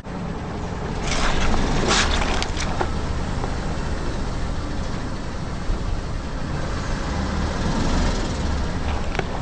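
A car rolling over objects and crushing them, with a few sharp crunches and crackles about a second in, then a steady rumble of tyres and engine.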